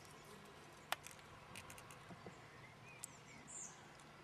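Near silence: quiet riverside background with faint bird chirps and a couple of small clicks.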